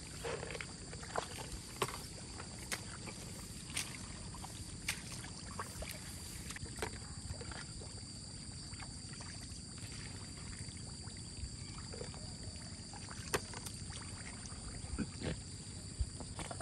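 Wading and groping through shallow muddy floodwater: repeated small splashes and sloshes from feet and hands in water and mud. Under them runs a steady high insect drone.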